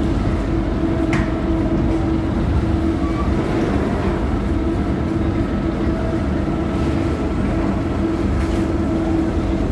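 Heavy engine running steadily: a constant low drone with a steady hum tone over it, and a faint click about a second in.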